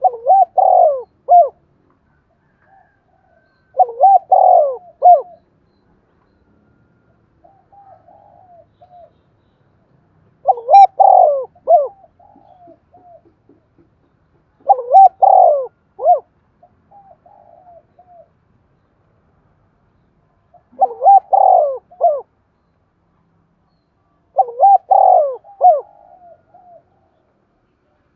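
Spotted dove cooing: six loud coo phrases a few seconds apart, each a quick run of notes, with fainter coo phrases in the gaps between them.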